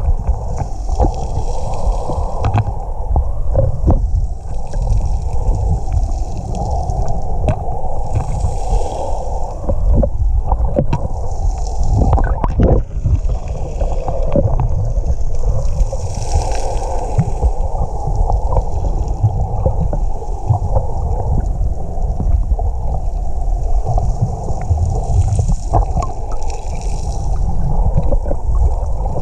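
Muffled underwater sloshing and rumbling of lake water, picked up by a camera in a waterproof housing held below the surface, with scattered small clicks and knocks throughout.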